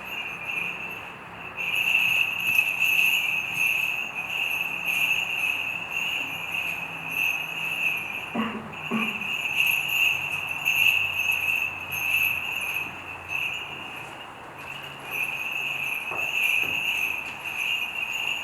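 Small bells on the chains of a swinging censer jingling in a steady rhythm, pausing briefly about three-quarters of the way through. A couple of soft knocks come about halfway.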